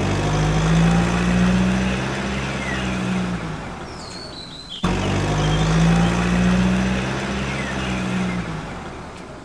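Recorded heavy truck engine sound running with a low drone that swells and then fades, played twice in a row with a sudden cut about halfway through.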